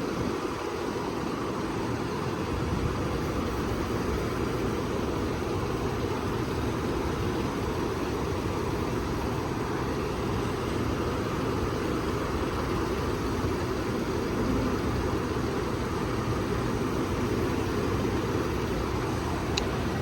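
Steady low rumbling background noise with no distinct events, and a faint tick near the end.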